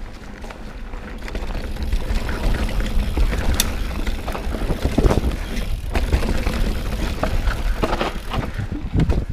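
Mountain bike riding fast over dirt singletrack: tyres rolling on dirt and leaves, with the bike's frame and chain rattling and clicking over bumps. Wind buffets the camera microphone as a steady low rumble. It gets louder about two seconds in as the speed picks up.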